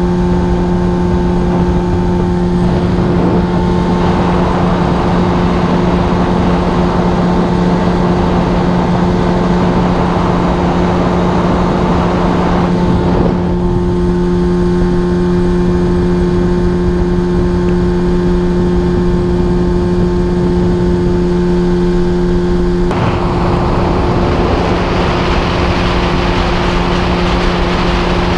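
Mercury 30 hp two-stroke outboard motor running at a steady speed as the boat travels, with a constant engine tone. A rushing wind-and-water noise comes and goes over it and grows brighter near the end.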